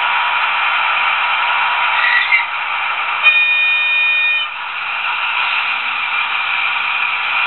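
Sound decoder of a Trix H0 model DB V100 diesel locomotive playing its diesel engine sound, with a single horn blast of about a second starting a little past three seconds in. A brief sound comes just before it, about two seconds in. After the horn the engine sound drops slightly.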